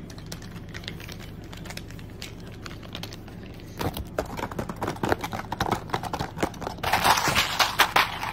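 Sheet-mask packet crinkling and crunching as it is squeezed in the hands. It starts as scattered faint crackles and grows into loud, dense crinkling about seven seconds in.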